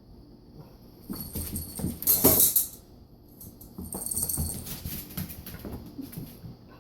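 A basset hound–Labrador puppy and a cat scuffling in play: scattered scrabbling, pattering and bumping of paws and bodies, with a loud burst of hiss-like noise a couple of seconds in and another busy flurry around four seconds.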